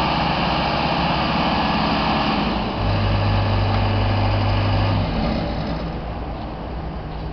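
Genie S-80 telescopic boom lift's engine running as the boom is lowered. About three seconds in a steady low hum joins for some two seconds, and the sound eases off near the end.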